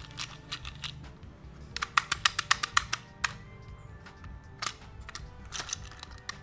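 Hard plastic clicks and taps from a toy car being handled, with a quick run of about ten clicks about two seconds in and a few single clicks after, over soft background music.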